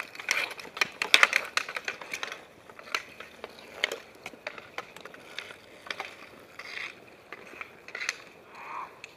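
Hockey sticks clacking against a street hockey ball and the asphalt during roller hockey, with inline skate wheels rolling on pavement. A quick run of sharp clacks comes in the first couple of seconds, then scattered ones.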